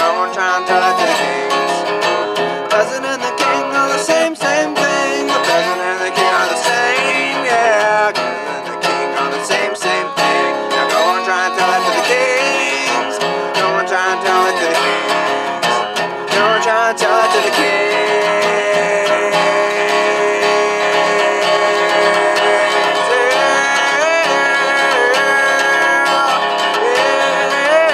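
Resonator guitar strummed and picked steadily, with a man's voice singing along.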